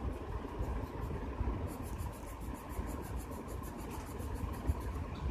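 Pencil scratching on paper held on a clipboard while a drawing is made. From about two seconds in there is a quick run of short, even strokes. A steady low hum sits underneath.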